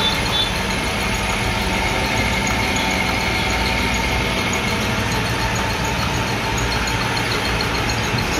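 Metalworking machine running steadily while machining a car front wheel hub. A faint high whine sounds for the first few seconds, over an even, fast ticking.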